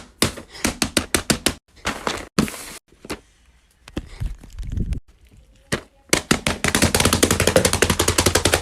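Plastic fidget toys being clicked and tapped: quick series of sharp clicks, a short hiss, and from about six seconds in a fast run of about ten clicks a second that cuts off suddenly.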